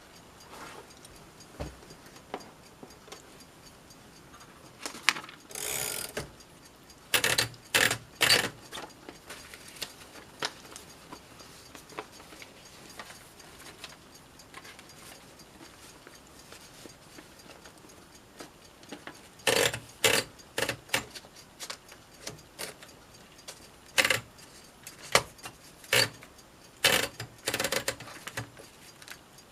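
1946 Underwood Standard model SS manual typewriter being worked: clusters of sharp mechanical clacks from keys and typebars, with a short rattling mechanism sound near the start and quiet pauses between the groups.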